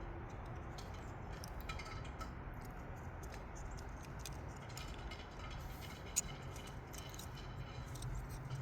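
Faint clicks and ticks of small plastic connector parts being handled and pushed into place while wires are moved into a new ignition coil connector. There is one sharper click about six seconds in, over a low steady hum.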